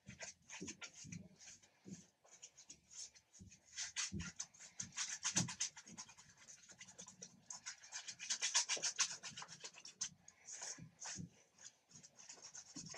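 Paintbrush scrubbing acrylic paint onto canvas: a fast run of short, scratchy strokes, busiest about a third of the way in and again about two-thirds through.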